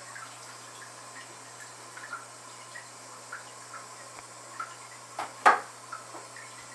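Aquarium water dripping and trickling in small irregular drops over a low steady hum. A single sharp knock comes about five and a half seconds in.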